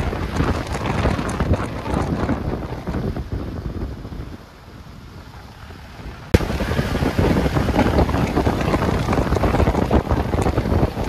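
Wind buffeting the microphone over the road noise of a moving car. The noise drops quieter for about two seconds in the middle, then comes back abruptly with a click.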